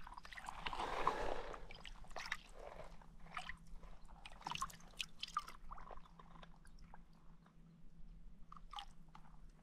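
A hand holding a zander in shallow water over pebbles, making small splashes and trickles, with scattered faint clicks and ticks.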